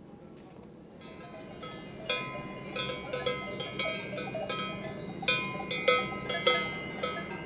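Several cowbells clanking irregularly, starting about a second in, with the loudest strikes past the middle.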